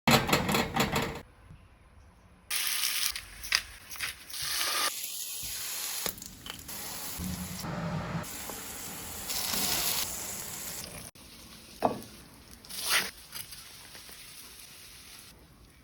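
Hissing, spray-like noise in several separate stretches that start and stop abruptly, with a couple of short sharp sounds near the end.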